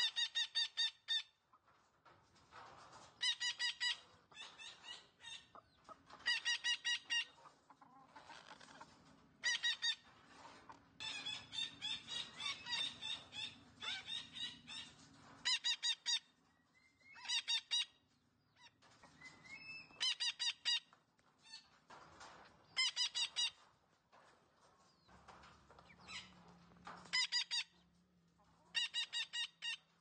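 Derbyan parakeet (Lord Derby's parakeet) giving harsh, loud calls in short bursts of rapid repeated squawks every few seconds, with a longer run of varied chattering calls in the middle.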